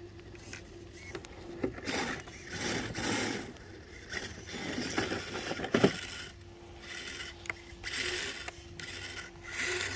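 Irregular crunching and scraping on loose rock and gravel, in short bursts every second or so, as an RC rock crawler tips from its side onto its roof and footsteps move on the stony trail. A faint steady hum comes in about six seconds in.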